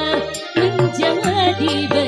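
Live dangdut koplo band playing: kendang hand drums striking a quick beat over keyboard and bass notes, with a wavering melody line on top.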